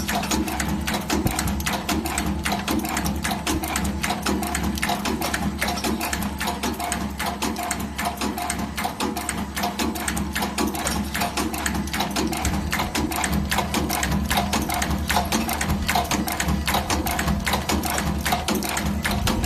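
Automatic plastic button drilling machine running: a steady motor hum under a dense, continuous clatter of rapid clicks.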